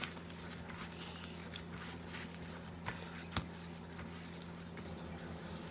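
Hands kneading raw ground-beef meatloaf mixture in a stainless steel bowl: faint, irregular wet squishing with a few soft clicks, over a steady low hum.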